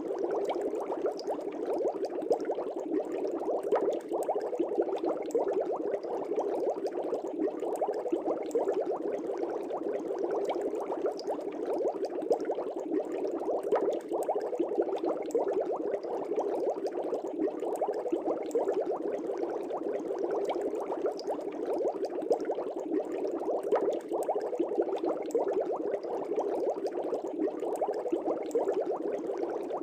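Aquarium air bubbles running: a steady, dense bubbling with many small pops.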